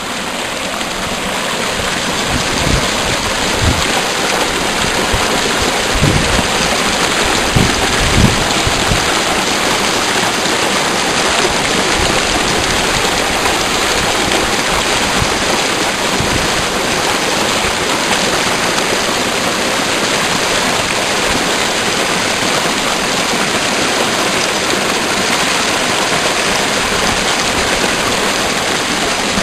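Steady rush of fast-flowing water, with a few low thumps about six to eight seconds in.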